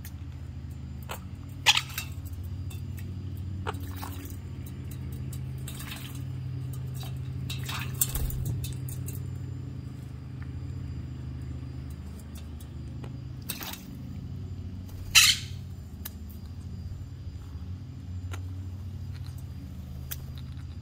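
Quaker parrots bathing in a steel bowl of water, with brief splashes and wing flutters now and then. The two sharpest come about two seconds in and about fifteen seconds in. A steady low machine hum runs underneath.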